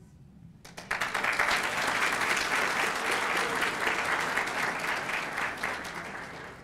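Audience applauding. It starts suddenly about a second in and tapers off near the end.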